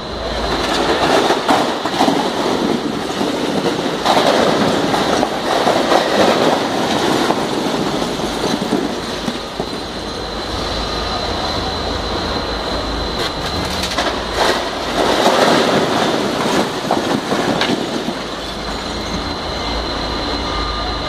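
Stacked plastic crates of glass beer bottles toppling and crashing down: a continuous clatter of crates and clinking, breaking bottles, with louder surges of falling crates, over a thin steady high tone.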